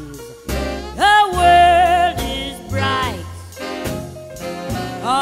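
Woman singing a ballad with a swing-style band behind her. She slides up into a long held note with vibrato about a second in, then sings shorter phrases over the band's steady bass.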